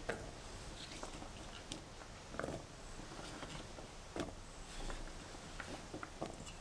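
Diced radish cubes pushed together by hand on a wooden cutting board: scattered light taps and clicks of the cubes against the wood, with a few sharper knocks spaced about every second or two.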